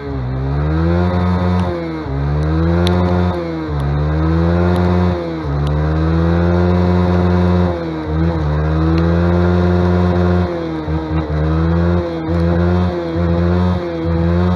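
Motorcycle engine revving hard while the rear wheel spins in snow, its pitch climbing, holding and dropping again every second or two. The revs turn shorter and choppier near the end.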